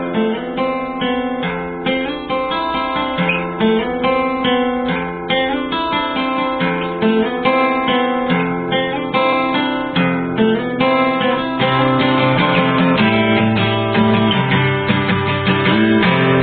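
Background music: acoustic guitar playing and strumming, with a fuller bass part coming in about halfway through.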